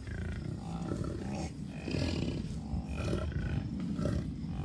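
North American bison grunting low and repeatedly, from a herd of cows and calves.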